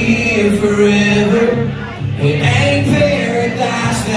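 Live country band music through a concert PA: acoustic guitars under a slow, held melody line, heard from within the crowd.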